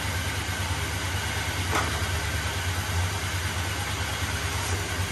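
1981 GMC pickup's engine idling steadily with a low, even rumble, left running so the freshly installed TH350 transmission's fluid level can be read on the dipstick.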